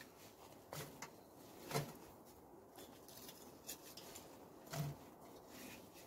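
Faint, scattered clicks and knocks from a small wood-burning tent stove packed with split kindling, about five over a few seconds, as the freshly loaded firebox starts to catch.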